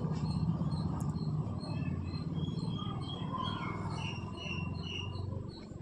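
Birds chirping in short, repeated high calls over a steady low hum.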